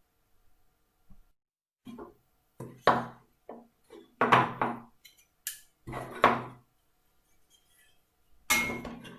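Pieces of wood and marking-out tools being picked up and set down on a workbench: a series of about six separate knocks and clatters.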